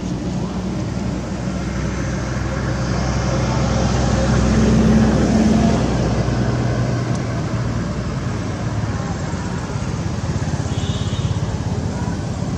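A motor vehicle's engine running and passing by, a low drone that swells to its loudest about five seconds in and then fades away.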